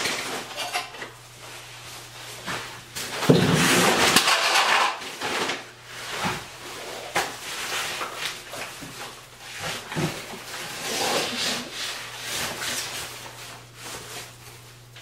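Bags being handled and moved by hand: irregular rustling, light knocks and clicks, with a louder stretch of rustling and scraping about three seconds in that lasts a couple of seconds.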